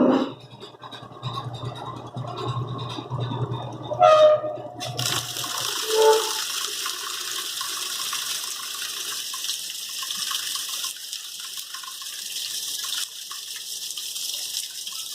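Electrolux Top 8 top-loading washing machine: a low motor hum with scraping and knocking for about the first five seconds, which then stops, and water begins gushing into the tub with a steady hiss.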